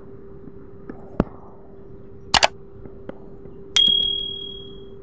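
Subscribe-button animation sound effect: a quick double click about two and a half seconds in, then a single bright bell ding that rings out and fades over about a second. A sharp click comes about a second in, and a steady low hum runs underneath.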